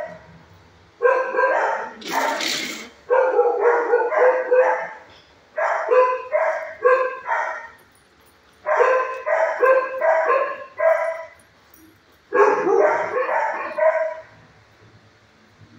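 Dogs in shelter kennels barking in about five runs of quick, repeated barks, with short pauses between runs. There is a short sharp noise about two seconds in.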